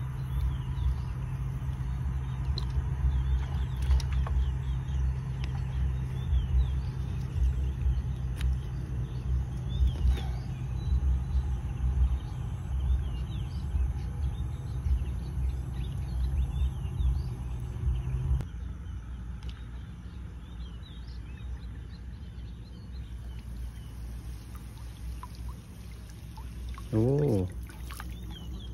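Open-air riverside ambience: wind rumbling on the microphone and a steady low hum, with birds chirping throughout. The hum and rumble cut off about two-thirds of the way through, leaving the chirping, and a short call sounds near the end.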